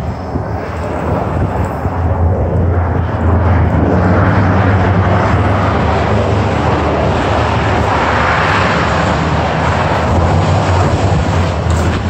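City bus engine running as the bus drives past close by: a steady low drone with a broad rushing noise that swells from about three seconds in and stays loud.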